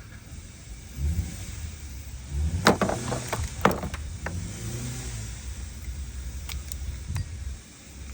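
Hand tools being handled during battery-cable work: a quick cluster of sharp clicks and knocks about two and a half to four seconds in, a few single clicks later, over a low rumble of handling that swells and fades.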